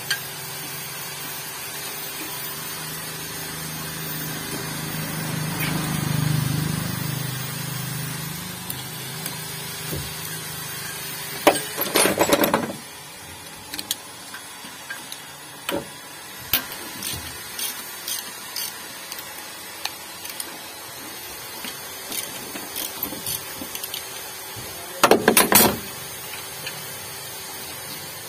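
Ratchet wrench working bolts on a carburetor: two short runs of rapid clicking, about 12 seconds in and again near the end, with scattered metal clinks of the tools between. A low rumble swells and fades around six seconds in.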